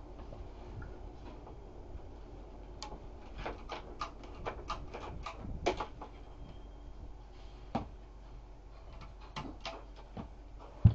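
A run of irregular sharp clicks and knocks over a steady low hum, bunched together a few seconds in; the loudest knock comes at the very end.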